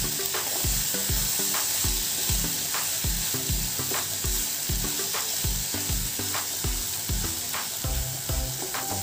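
Chopped onions and tomatoes sizzling in oil in a kadhai while a wooden spatula stirs them, with irregular scrapes against the pan; they are being sautéd into a masala base. A steady low beat runs underneath.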